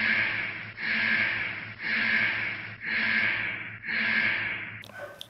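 Alarm sound effect: a harsh buzzing alert blast repeated five times, about once a second, cutting off near the end.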